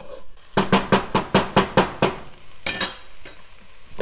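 Wooden spoon knocking against a cooking pot while stirring onions: a quick run of about eight clacks in just over a second, then one more a second later.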